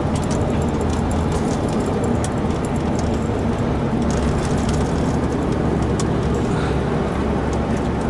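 Steady engine and road noise heard inside a moving truck's cab: a continuous low drone with scattered light ticks.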